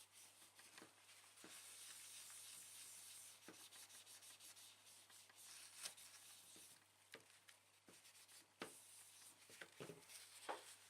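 Faint rubbing of toilet paper wiping old, year-old thermal compound off a computer part, with a few light clicks and taps.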